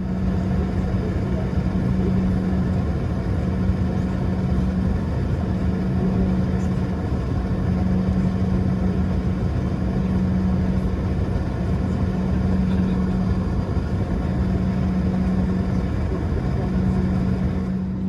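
Steady cabin noise inside an Airbus A321 airliner: a low rumble with a constant hum, holding level throughout.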